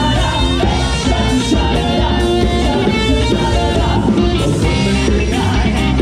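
Live band playing: electric guitar to the fore over a drum kit, with a steady beat.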